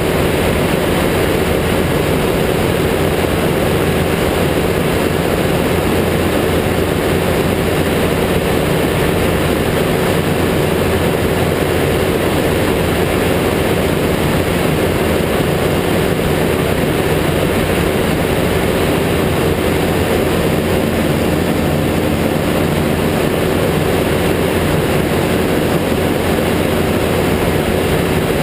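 Ultralight trike's engine and pusher propeller running in flight as a steady, unchanging drone, mixed with rushing air.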